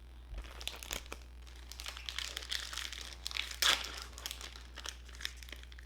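Crinkling of a trading-card pack's wrapper being handled and torn open, a run of crackles loudest a little past halfway.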